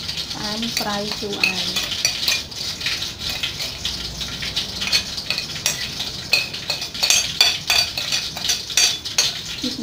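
Metal spoon scraping across a ceramic plate and clinking against it in quick, irregular strokes, with sharper taps in the second half as food is knocked off the plate into a wooden mortar.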